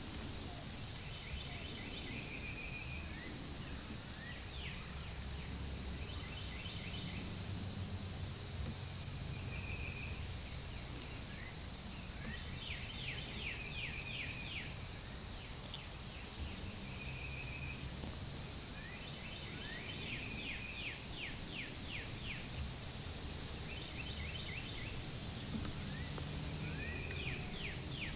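Songbirds singing in the background, repeating short phrases of quick falling notes and brief trills every few seconds. Under them runs a steady high-pitched hum and a low rumble.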